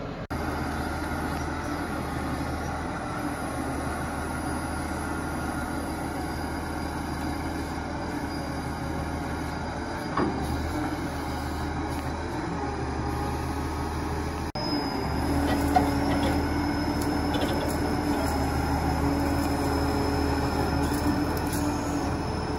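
Heavy-duty diesel engine drone from a heavy wrecker working its boom and winch under load to pull an overturned excavator back onto its tracks. It steps up louder about two-thirds through, with a steady higher whine added.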